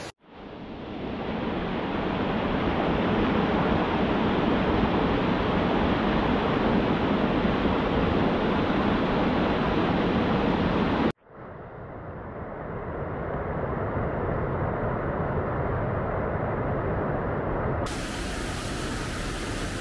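Rushing water of a rocky stream's rapids, a steady full rush. It cuts out abruptly about eleven seconds in and fades back up, then changes in tone near the end.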